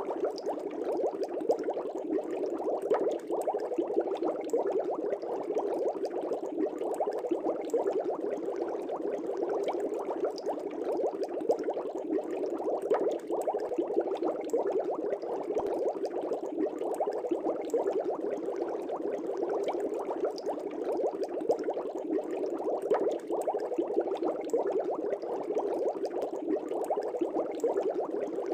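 Aquarium air bubbles rising through the water of a fish tank: a steady, dense bubbling with many small pops.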